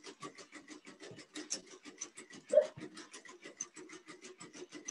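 Quadruped robot dog's feet tapping the floor rapidly and evenly as it is made to run, about eight or nine light taps a second, with one louder knock a little past halfway.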